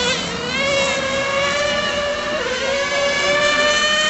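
Small nitro (glow-fuel) engine of a Serpent 720 1:10 RC touring car running at high revs, a high-pitched whine. The pitch drops as the throttle is lifted right at the start and climbs back up, dips again briefly about halfway through, then holds high.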